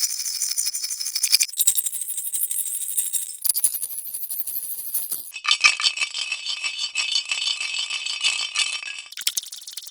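Baby rattle shaken in a fast, dense rattle, edited into successive pitch-shifted and filtered versions that switch abruptly about every two seconds. One longer, lower-pitched version runs from about five to nine seconds in.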